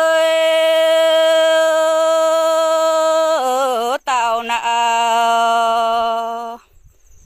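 Unaccompanied singing in the Red Dao lượn style: one voice holds a long steady note, glides down to a lower held note about three and a half seconds in with a short break, and stops about six and a half seconds in.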